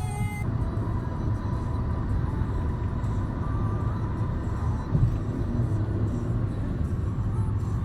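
A car on the road: a steady low rumble of engine and tyres, with a single bump about five seconds in. A music track cuts off just after the start.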